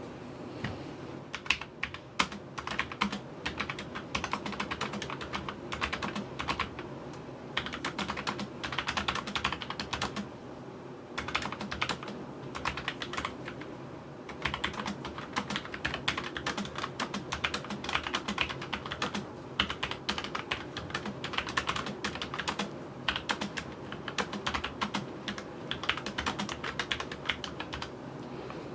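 Typing on a Logitech MX Mechanical Mini mechanical keyboard: rapid, steady keystroke clicks in runs, with a couple of brief pauses partway through.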